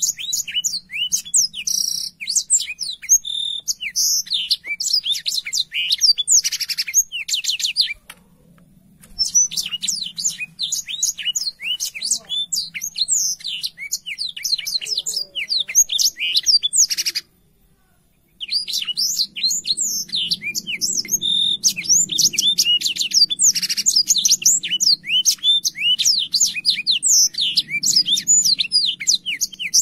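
Black-throated canary (blackthroat) singing a long, fast, continuous song of high, quickly gliding chirps and trills, with two short breaks about eight and seventeen seconds in.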